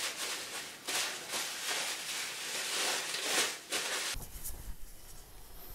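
Bubble-wrap packaging rustling and crinkling in uneven swells as it is handled. About four seconds in it gives way to a faint low hum.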